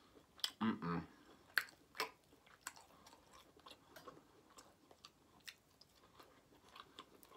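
Close-miked chewing of barbecue food, with scattered wet mouth clicks and lip smacks and a brief low vocal sound about a second in.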